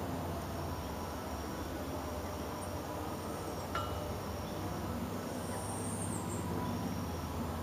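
Outdoor lakeside ambience: a steady low rumble with faint high insect buzzing, and a single light metallic click about four seconds in.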